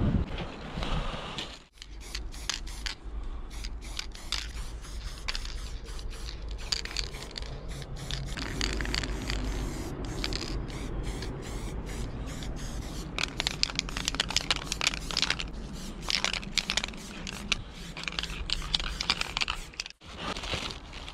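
Aerosol spray paint can hissing in short, repeated bursts, over a steady low rumble. The sound drops out briefly near the start and again near the end.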